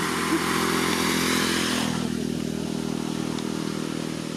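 A road vehicle's engine running steadily, with a louder rush of passing traffic that fades away about two seconds in.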